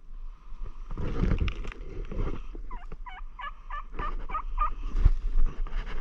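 A quick run of about nine short hen-turkey yelps from a hunter's turkey call, about three seconds in, over footsteps crunching through dry leaves and brush. The calling is made while walking to cover the noise of moving.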